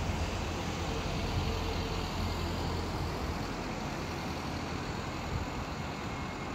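Steady low rumble of road traffic, heaviest in the first few seconds and easing off toward the end, with no firework bangs.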